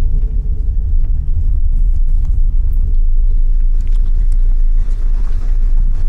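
Car driving, heard from inside the cabin: a steady low rumble of engine and tyres on the road.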